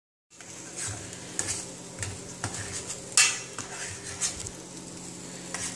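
Metal spoon stirring in a stainless steel saucepan, scraping and clinking against the pan in irregular strokes, with one louder clink about three seconds in. A faint steady hum runs underneath.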